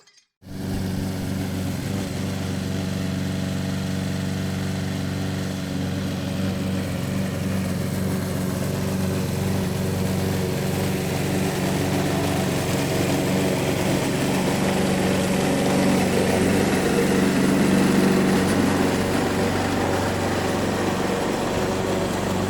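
Lawnmower engine running steadily as it passes by, starting abruptly just after a moment of silence, growing gradually louder to a peak late on, then easing off slightly.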